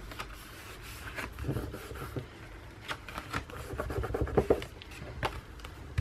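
Paper pages of a handmade mini scrapbook album being turned and pressed flat by hand: light rustling with scattered soft taps and knocks against the table.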